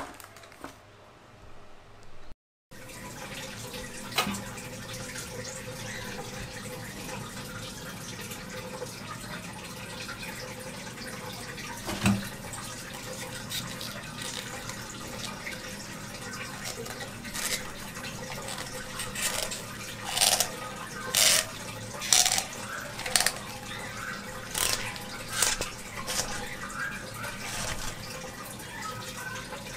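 Aquarium water sloshing and trickling as a hand works in the tank setting a submersible pump in place. A steady wash of water with a faint hum, and a run of short splashes between about 17 and 27 seconds in.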